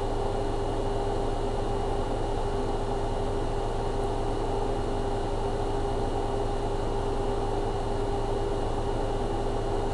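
Steady room hum: a constant droning tone over an even hiss, with no other events.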